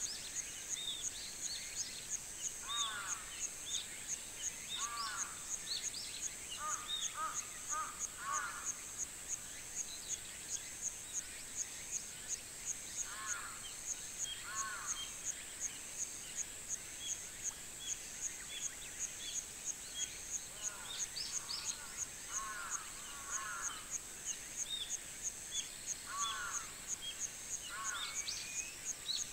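Summer rural morning ambience: an insect's high buzz pulsing evenly about twice a second throughout, with birds calling over it in short groups of arched notes and scattered higher chirps.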